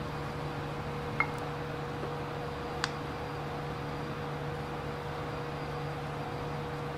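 Rice paddle scooping cooked rice from a glazed clay donabe into a porcelain bowl, knocking sharply against the ceramic twice, about a second in and about three seconds in, over a steady hum of kitchen machinery.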